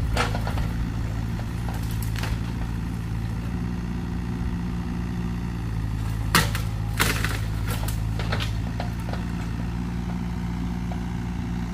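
Mini excavator engine running steadily as its arm works into the trees, with two sharp cracks a little past halfway, branches snapping.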